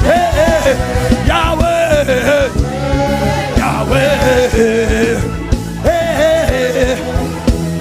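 Gospel worship music: a gliding, wavering melody, sung, over a band with a steady drumbeat.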